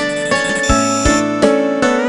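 Nokia 7360 ringtone playing: a synthesized melody of quick keyboard-like notes over a steady beat of low drum hits, about three a second.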